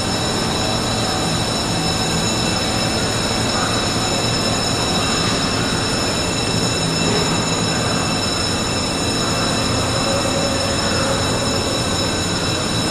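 Loud, steady machinery noise with several high steady whining tones over it, with no rhythm or change.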